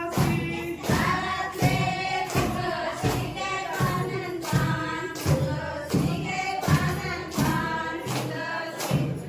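A group of voices singing a Konkan fugdi folk song together, over a steady beat of sharp percussive strikes about every 0.7 seconds.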